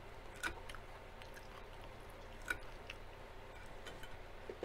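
Close-miked chewing of a mouthful of salad, with two sharp clicks about two seconds apart, the first about half a second in, and a few fainter clicks between.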